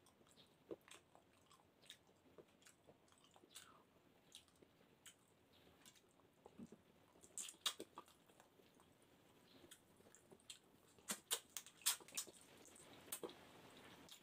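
Faint, sparse mouth sounds of a person eating rice and fish by hand: soft chewing with short clicks, which come in a small cluster about halfway through and again near the end.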